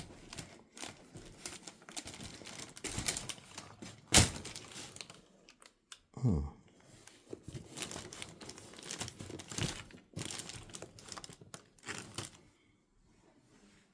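Packaging paper and plastic crinkling and rustling as it is handled and unwrapped, with one sharp knock about four seconds in.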